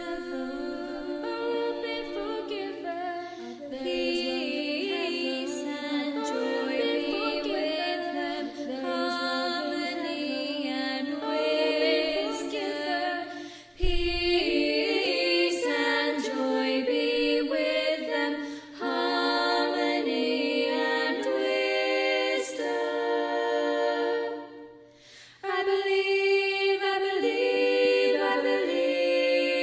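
A quartet of four young female voices singing a cappella in close harmony, holding sustained chords. The singing breaks off briefly about halfway through and again a few seconds before the end, then comes back in.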